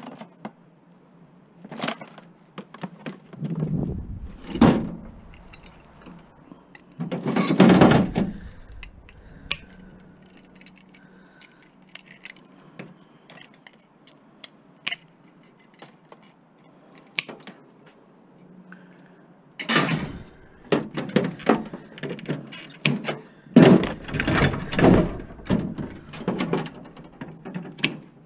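Hand tools working on scrap wiring: snips clicking as they cut through wires, a wrench clinking, and metal parts and wires rattling and clattering. The handling comes in irregular bursts, with louder clatters about four and eight seconds in and a busy stretch from about twenty seconds.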